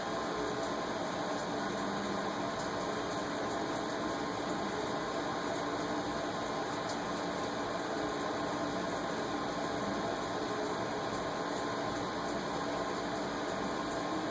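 Steady indoor hum and hiss with no distinct events.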